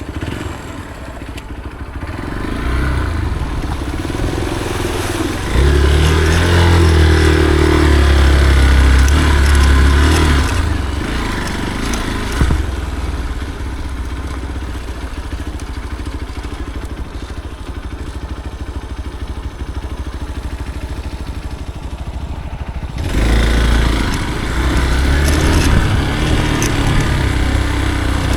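Motorcycle engine riding an off-road trail, its revs rising and falling. It is loudest for a few seconds about a fifth of the way in, runs more steadily and quieter through the middle, and picks up again near the end.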